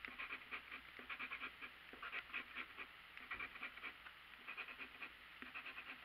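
A coin scratching the coating off a paper scratch-off lottery ticket: quick rasping strokes in short runs, fairly quiet.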